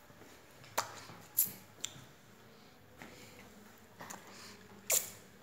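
A handful of short sharp clicks and knocks over quiet room tone, the loudest about a second and a half in and again near the end.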